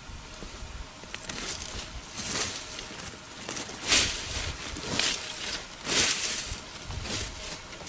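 Footsteps crunching through deep dry fallen leaves, about one step a second.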